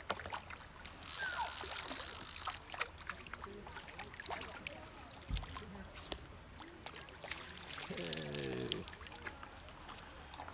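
Lake water splashing as a hooked fish is played on a spinning rod and brought to a landing net, with one loud burst of splashing about a second in and scattered small clicks and knocks.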